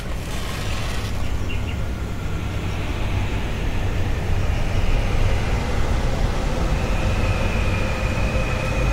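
Steady low rumbling drone. A faint, high, steady tone comes in about seven seconds in.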